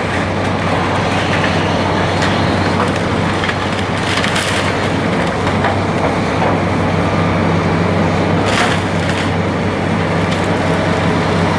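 Heavy milling machinery running steadily: a constant low hum under a continuous grinding, crushing noise, with a couple of brief hissing flares.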